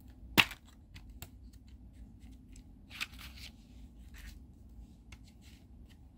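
Handling of the set's metal steelbook cases and packaging: a sharp click about half a second in, then light scattered clicks and brief rustles.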